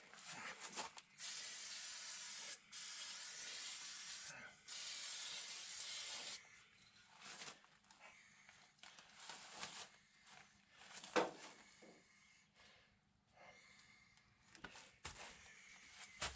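Aerosol spray can hissing in three long bursts over about five seconds, followed by several shorter spurts and a sharp click about eleven seconds in.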